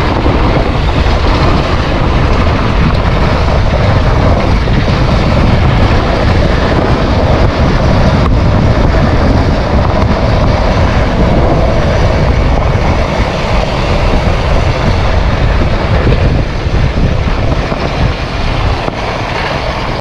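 Dirt bike riding down a long, steep dirt track, its engine running steadily under heavy wind buffeting on the microphone.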